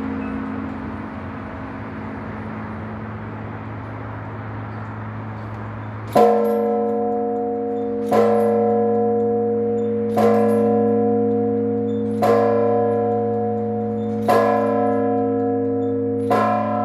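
A single church bell rung in slow, even strokes. Its hum rings on for the first several seconds, then six strokes follow about two seconds apart, each leaving a long ring.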